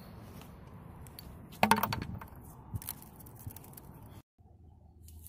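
A metal bottle cap and a small nut dropped into an empty plastic bucket: a sharp clatter about one and a half seconds in, then a few lighter clicks. A steady hiss lies under it, and the sound cuts off suddenly near the end.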